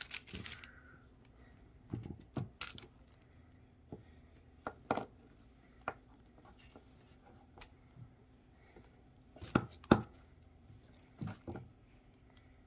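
Scattered clicks and taps of small plastic toys and their packaging being handled and set down on a table, with the loudest pair of knocks near the end.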